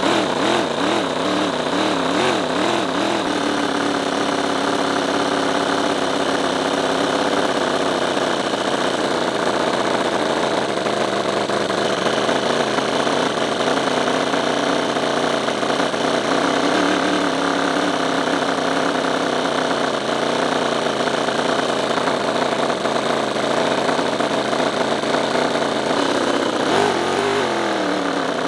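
Toyan 28cc (1.7 cu in) nitro-fuelled four-stroke miniature V8 running steadily through its stock mufflers, with a muffled, choked note: it sounds suffocating, as if it can't breathe. The pitch wavers in the first few seconds and falls near the end.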